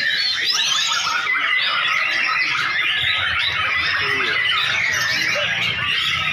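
Many white-rumped shamas (murai batu) singing at once, a dense, continuous mass of overlapping whistles, trills and rapid rising and falling notes.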